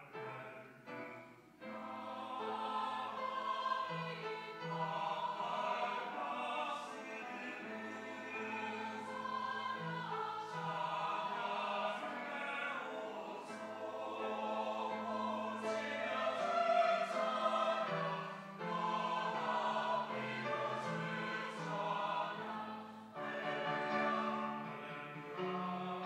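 Mixed choir of men's and women's voices singing a sacred anthem in sustained, overlapping phrases, with the word "Hallelujah" in the text. The voices drop back briefly just at the start and re-enter about a second and a half in.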